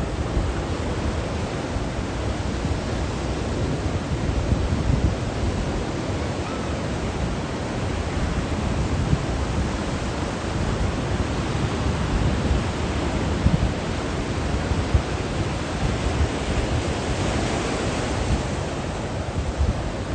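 Ocean surf breaking along a jetty in typhoon swell: a steady rush of water, heaviest in the low end, with a brighter wash near the end.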